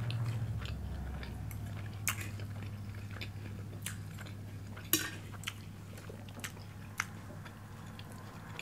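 Quiet eating at a table: three sharper clicks of a fork against glass plates, among lighter ticks and chewing sounds, over a steady low hum.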